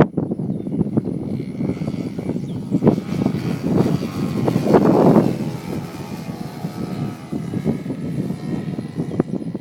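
Radio-controlled model airplane's motor and propeller running, growing louder to a peak about five seconds in and then falling away, as in a pass overhead.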